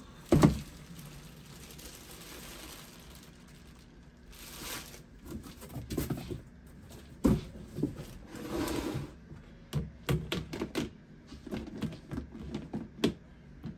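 A heavy thump about half a second in, then plastic bag crinkling and a run of hard plastic knocks and clicks as a bagged block of candle wax is set into a clear plastic storage bin and the bin is handled.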